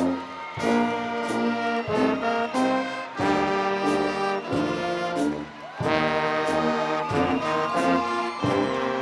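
Brass instruments, trombones and trumpets, playing music in held chords that change every second or so.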